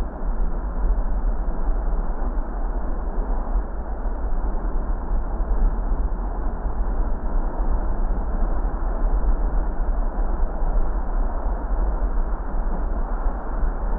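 Steady car noise: a heavy low rumble with an even hiss above it, unchanging throughout.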